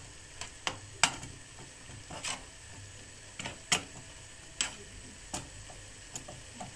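A spatula tapping and scraping against a frying pan as ground beef is stirred, about a dozen irregular clicks over a faint sizzle from the browning meat.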